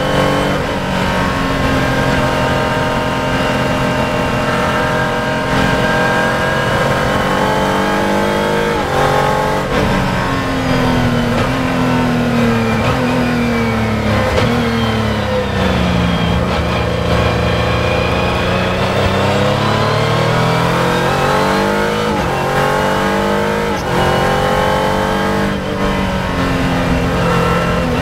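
Palmer Sport F2000 single-seater race car's engine, heard from on board: it runs hard at high revs, then falls in pitch about a third of the way in as the car slows and changes down from fourth to third for a corner. It bottoms out and climbs again under acceleration, with a short break near the end at the upshift back to fourth.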